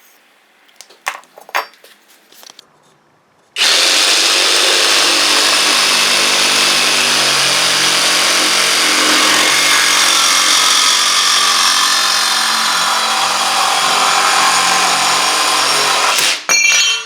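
A DCK brushless 20-volt cordless reciprocating saw cutting eighth-inch metal plate. It starts abruptly a few seconds in after some light knocks of handling, runs steadily for about thirteen seconds and stops, with a short burst just after.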